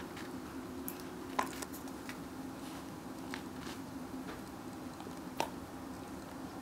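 Basset hound chewing a dried cow ear: irregular crunches and clicks, two sharper cracks about a second and a half in and near the end, over a steady low hum.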